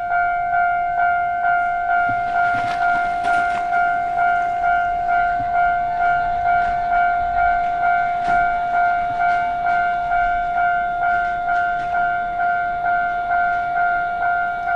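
Japanese railway level-crossing warning bell ringing: an electronic 'kan-kan' tone that starts suddenly and pulses about twice a second. It signals that a train is approaching and the crossing is closing.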